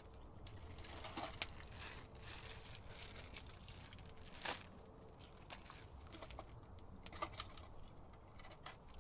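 Faint rustling and clicking of food packaging and gear being handled, with a louder rustle about halfway through.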